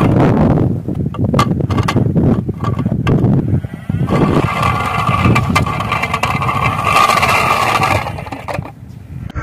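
Plastic toy backhoe loader pushed by hand over rough asphalt: its hard plastic wheels roll and scrape with rattling clicks. From about four seconds in, a steady whir joins the rolling noise, then fades shortly before the end.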